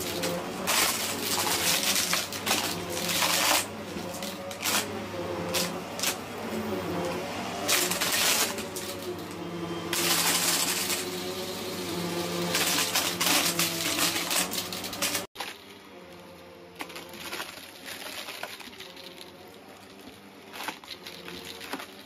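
Hoover Breeze Evo upright vacuum cleaner running over a shag rug, its motor humming steadily while confetti and sequins rattle and click up through the machine. About fifteen seconds in the sound drops suddenly to a quieter, steadier running with only occasional clicks.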